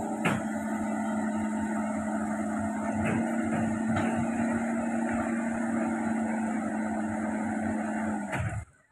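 Hitachi Zaxis 110 excavator running steadily, a constant droning hum from its diesel engine and hydraulics, with a couple of knocks a few seconds in. The sound cuts off suddenly near the end.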